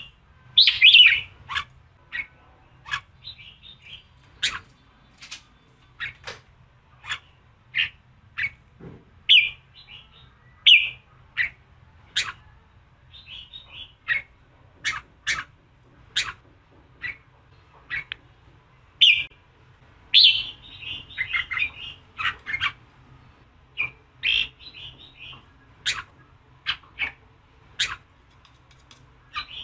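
Red-whiskered bulbul calling in the fired-up 'giọng kình' style used to provoke male bulbuls: short sharp notes more than once a second, broken every few seconds by brief warbled phrases.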